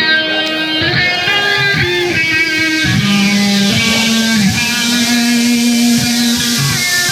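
Background music led by guitar, with sustained, bending notes over a steady bass.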